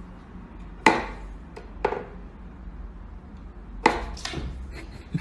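Wooden whack-a-mole cat toy knocking: a few sharp, irregularly spaced wooden knocks as the pegs are pushed and the mouse pops up and is pawed at.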